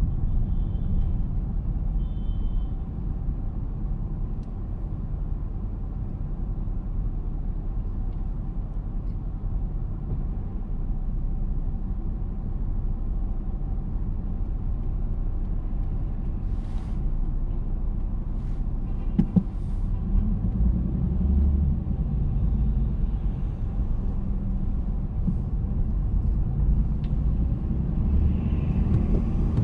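Steady low rumble of a car driving slowly on a city street: engine and road noise with other traffic around. There are two short high chirps near the start and a sharp knock about two-thirds of the way through.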